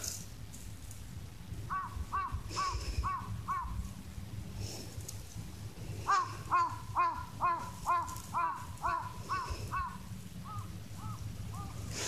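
A bird calling repeatedly, about two calls a second: a run of five calls, then after a pause a longer, louder run of about eight, tailing off fainter near the end.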